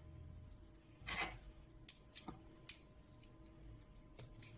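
Metal spoons scraping and clinking against each other as peanut butter is scraped off one spoon with another: a short scrape about a second in, then several sharp clicks.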